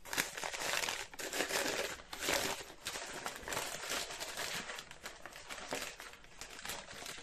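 Brown kraft paper bag crinkling and rustling as hands unfold and open it, in uneven surges that are loudest in the first three seconds.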